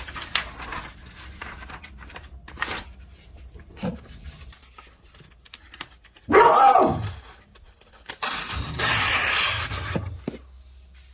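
Small folding knife cutting through material: scattered clicks and scrapes, a loud tearing slice about six seconds in, and a longer rasping cut from about eight to ten seconds in.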